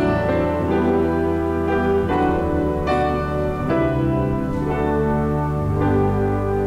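Instrumental keyboard music: chords changing about once a second over long held bass notes, with no singing.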